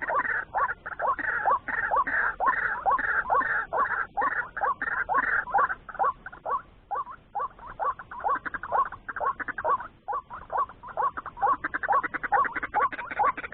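White-breasted waterhen calling: short rising notes repeated rapidly and evenly, about two to three a second, with a brief pause about halfway through.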